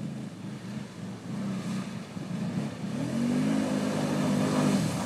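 ATV engine revving up and down under load as the four-wheeler works through deep mud and water, growing louder about halfway through as it comes closer.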